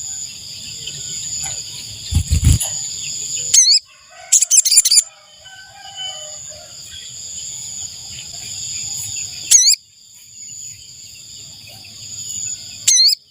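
Spiderhunter (sogok ontong) calls: short, sharp, looping high calls repeated every few seconds, three in all, with a quick burst of chirps about four and a half seconds in, over a steady high-pitched insect drone. A loud low thump comes about two seconds in.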